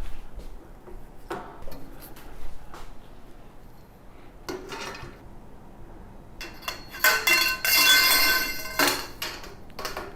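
Metal parts of a compost tumbler knocking and scraping as they are fitted together: a few scattered clanks, then a longer ringing metallic scrape and rattle about six and a half seconds in.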